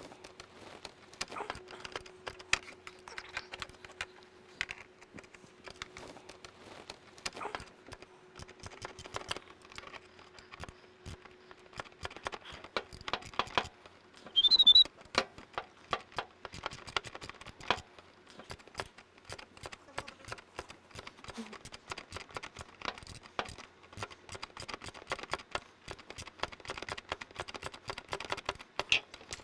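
Hand ratchet clicking in short runs, with taps of metal tools, as bolts of a motorcycle engine protection bar are run in by hand. A short high squeak about halfway through is the loudest sound.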